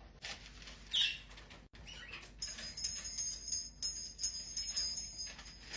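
Ringneck parakeet sounds: a short falling squawk about a second in and a softer one just after two seconds, then a busy stretch of high ringing and quick rattling, the bird moving about its cage.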